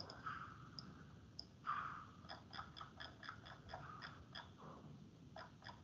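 Faint, irregular clicking of a computer mouse and keyboard, with a quick run of keystrokes from about two to four and a half seconds in and two more clicks near the end.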